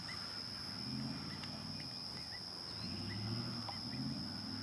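Distant pickup truck engine running, its low rumble swelling in a few surges, with a steady high insect drone and a few faint bird chirps.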